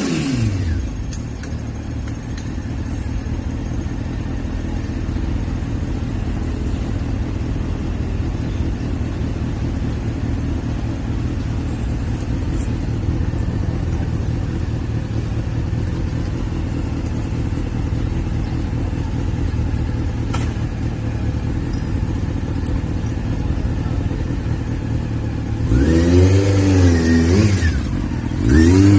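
Honda CBR600 F4i's inline-four engine idling steadily after dropping back from a rev at the start. Near the end it is revved in several quick rises and falls.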